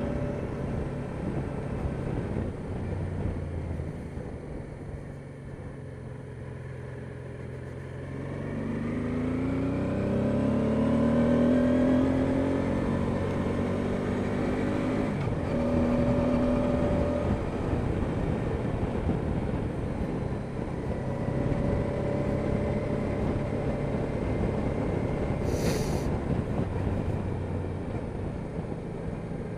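Honda Deauville NT650V's V-twin engine running on the move, easing off and then pulling up through the revs with a rising note about a third of the way in, over a steady rush of wind and road noise.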